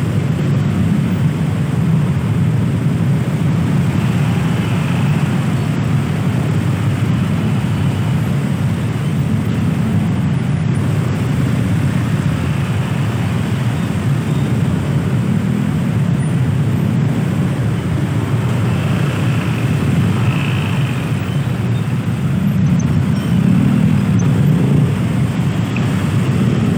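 Heavy traffic jam of motor scooters and cars: many small motorcycle engines idling and creeping forward close by, a steady low engine noise.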